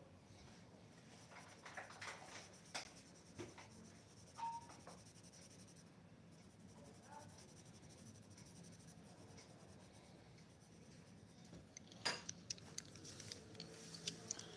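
Faint scratching of a coloured pencil on paper as it shades, with a few light taps. Near the end come several sharp clicks of wooden pencils knocking together as a handful is picked up.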